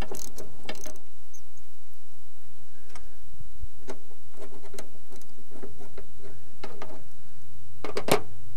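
Open-end wrench clicking and clinking against the bolts and steel firewall as it turns the horn-bracket bolts, in scattered irregular ticks with the loudest cluster near the end. The bolts are stiff, having had no penetrating oil.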